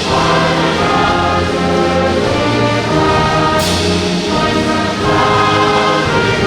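Band music led by brass playing slow held chords, with a cymbal crash about three and a half seconds in.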